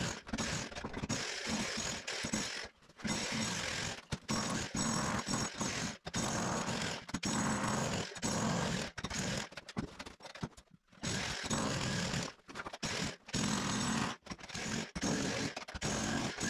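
Electric demolition hammer (jackhammer) chiselling through a concrete floor slab. It runs in stretches of a few seconds, broken by short pauses, the longest about ten seconds in.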